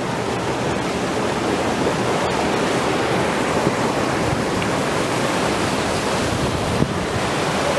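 Steady rushing of fast-flowing mountain water near a waterfall, an even roar with no pauses. A single light knock comes near the end.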